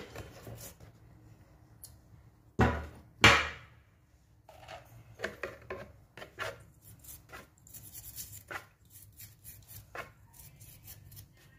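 Toothbrush scrubbing small electric-drill gears in a plastic basin of cleaning fluid, with light, irregular clicks of small metal parts being handled. Two sharp knocks come about three seconds in, a little under a second apart, as metal parts are set down on the workbench.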